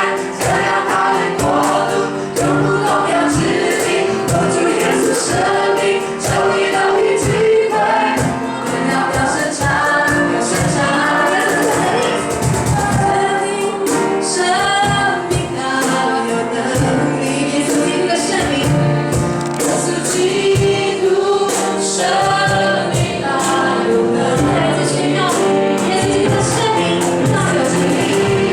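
Choir singing a Christian worship song with band accompaniment and a steady drum beat.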